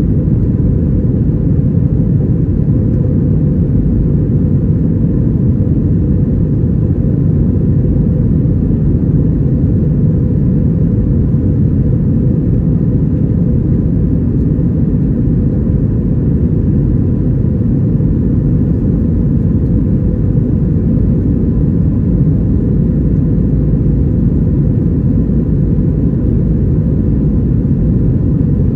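Steady cabin noise inside an Airbus A321-232: the low rumble of its IAE V2500 engines and the rush of air, with a faint steady whine over it.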